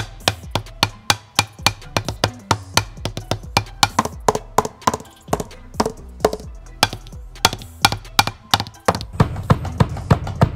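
Drumstick tapping the stock Mylar heads of an Alesis DM10 electronic drum kit's pads: sharp, clicky strikes, about three a second, with a fuller, denser run of hits near the end as the kit is played.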